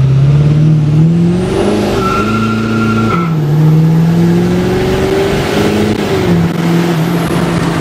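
Ford 6.7 Powerstroke turbo-diesel V8 under full throttle, heard from inside the cab, its pitch climbing and dropping twice as the automatic transmission upshifts about three and six seconds in. It is a rolling-start pull from about 15–20 mph toward 100 mph without brake boosting, with the truck running a 66 mm turbo, a stroker CP4 pump and stock injectors.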